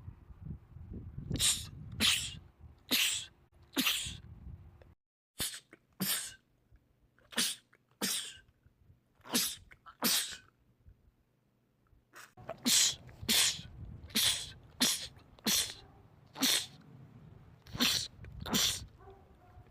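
Men sneezing in rapid fits: about eighteen short, loud sneezes, often coming in quick pairs less than a second apart, in three runs separated by brief pauses.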